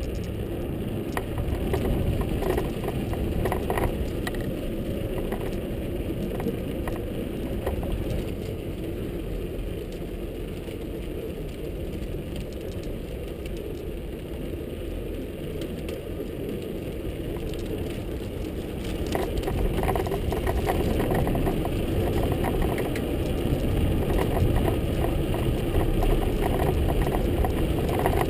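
Bicycle tyres rumbling over a wooden boardwalk and plank bridge deck, recorded on a GoPro, with rattling and irregular clicks as the wheels cross the plank joints. It gets louder about two-thirds of the way through.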